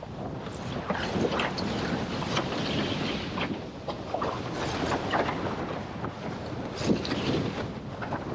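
Windsurf board sailing through choppy water in strong wind: a constant rush of wind on the microphone and water hissing past, with irregular slaps and splashes as the board hits the chop.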